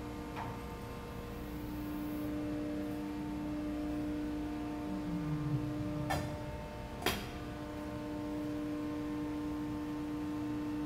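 Steady machinery hum made of several held tones, with a brief low falling tone and then two sharp knocks about a second apart past the middle.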